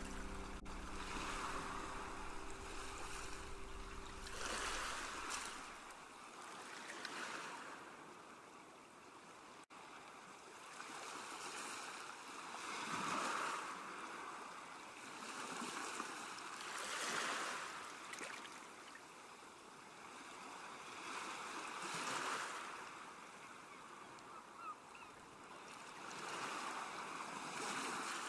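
Surf of ocean waves washing in, a rushing sound that swells and fades every four to five seconds; soft backing music dies away in the first few seconds.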